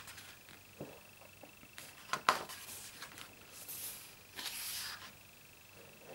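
Photobook pages being turned by hand: a sharp crackle of paper about two seconds in, the loudest sound, then two brief papery swishes as the page goes over and is smoothed down.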